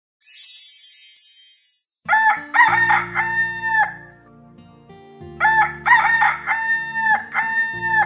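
A brief sparkling chime, then a rooster crowing cock-a-doodle-doo twice, the second crow starting about halfway through, over a low steady musical note.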